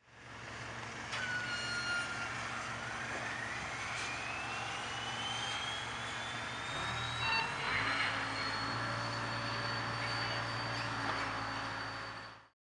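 Diesel passenger locomotive running and throttling up: its engine note steps up about seven seconds in, under a high whine that rises steadily in pitch.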